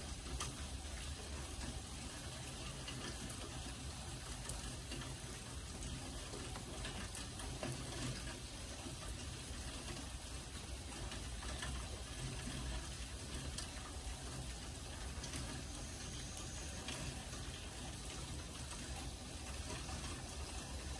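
Steady rain: an even, unbroken hiss with a few faint drop ticks scattered through it.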